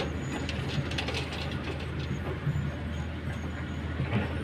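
Komatsu hydraulic excavator's diesel engine running steadily, with scattered clanks and rattles as the machine works its bucket over a dump truck and swings it away.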